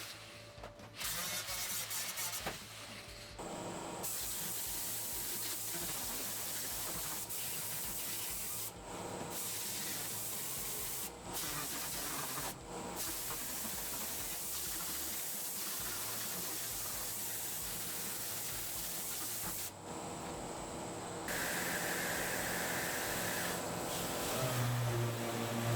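Power sanding or abrasive cleaning of the Mini's steel body panels, a steady hissing scrub that stops and starts several times. Near the end a low hum starts and rises in pitch.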